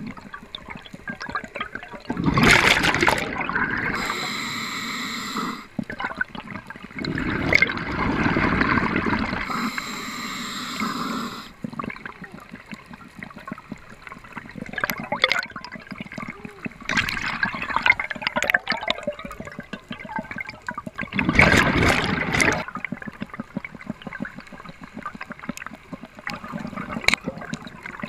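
Underwater sound picked up by a diving camera: a steady wash of water noise against the housing, with scattered fine clicks and crackles and a few louder surges of rushing water as the diver moves.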